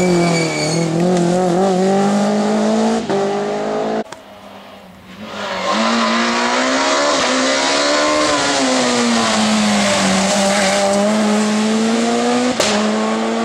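Rally cars at full racing pace, their engine notes climbing and dropping through gear changes as they pass, with a tyre squeal near the start. The sound falls away briefly about four seconds in before another car's engine comes in.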